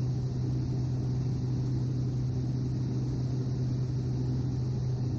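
Steady cabin drone of a Cessna 208 Grand Caravan EX in level cruise: its turboprop engine and propeller running at a constant setting, a low even hum with hiss above it.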